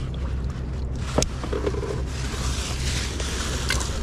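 Fishing boat's engine running steadily with a low hum, with two sharp knocks, one about a second in and one near the end.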